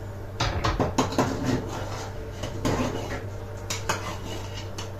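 A metal spoon stirring in a cezve, clinking and scraping against the pot in a run of irregular taps, with a steady low hum underneath.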